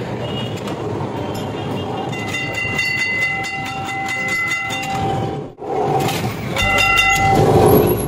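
Electric tram running through street traffic, heard from the driver's cab: a steady rumble and rattle of the car on its rails. About two seconds in, a run of quick clicks sets in and a horn sounds for about three seconds. The sound breaks off suddenly a little after five seconds, then comes back louder with a second, shorter horn blast.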